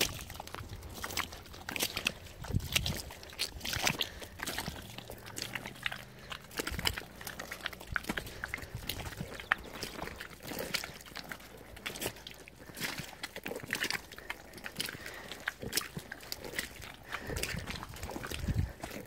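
Footsteps squelching through soft, wet mangrove mud, a few heavier low thuds among a constant scatter of small clicks and crackles.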